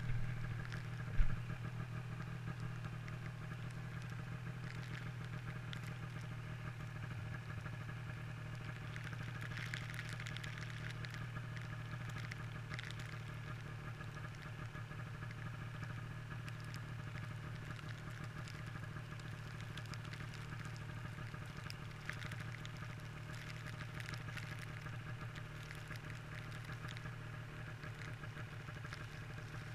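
Snowmobile engine idling steadily, with a single sharp thump about a second in.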